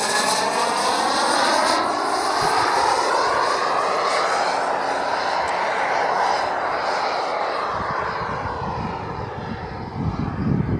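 Radio-controlled model jet flying past: its engine noise is loud from the start, holds for several seconds with a sweeping, phasing quality, then fades as it draws away. Low, irregular buffeting comes in near the end.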